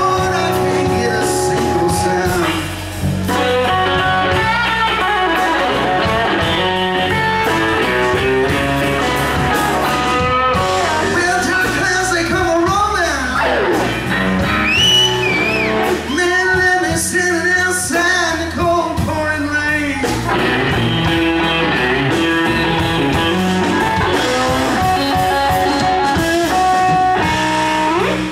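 Live electric blues band playing a slow blues: electric guitar lead with bent notes over bass guitar and drums, with a long downward pitch slide about halfway through.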